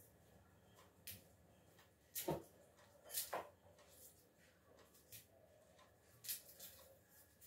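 Dry garlic skins crackling and rustling in scattered short bursts as cloves are peeled by hand, with a soft knock about two seconds in.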